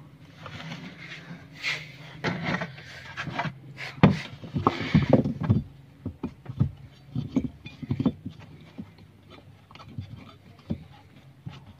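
Hands and tools working on washing machine parts while a new rotor is fitted and a washer set in place: irregular knocks, clicks and scraping, busiest about four to five seconds in.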